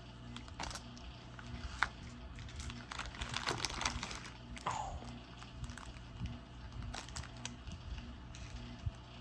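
Small plastic bead bags crinkling and loose stone beads clicking against each other as they are handled, with a busy patch of clicks about three to four seconds in.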